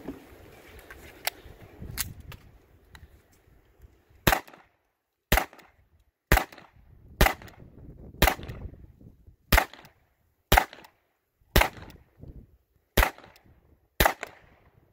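SIG Sauer P226 .22 LR rimfire pistol fired ten times at an even pace of about one shot a second, starting about four seconds in. Before the shooting, faint clicks of the gun being handled at the table.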